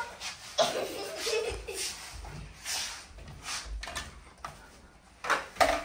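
Soft low thuds and shuffling of people moving about on a floor, with faint voices. A few louder, sharp sounds come near the end.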